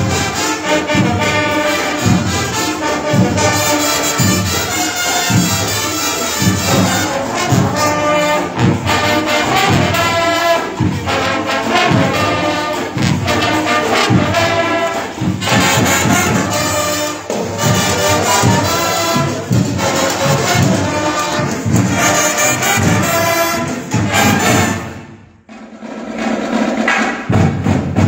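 Marching band playing: trumpets, trombones, saxophones and sousaphones over a steady drum beat. The music cuts off about 25 seconds in, and after a short gap the drums start up again alone.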